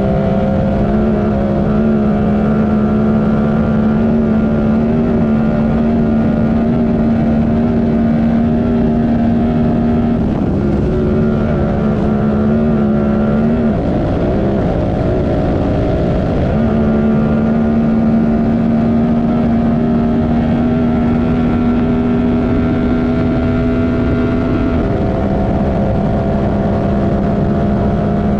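Honda Talon race UTV's engine running steadily, its pitch shifting in a few small steps. About halfway through it drops and wavers for a couple of seconds before settling back to a steady pitch.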